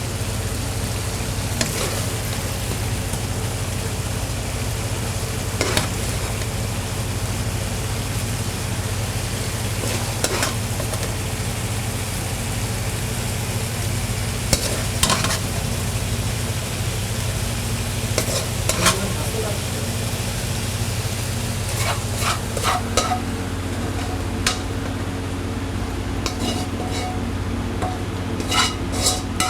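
Chicken, onion and chili frying in a pan, sizzling steadily, while a spatula stirs and scrapes against the pan with a knock every few seconds. The knocks come more often near the end, over a steady low hum.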